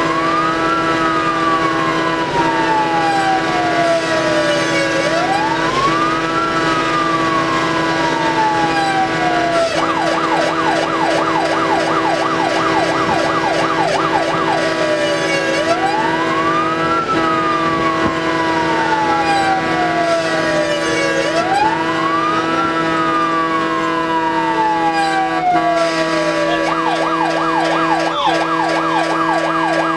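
Fire engine's electronic siren, heard from inside the cab. It switches between a slow wail, a quick rise then a long falling sweep every five to six seconds, and a fast yelp of about four short sweeps a second, about ten seconds in and again near the end. A steady hum runs underneath.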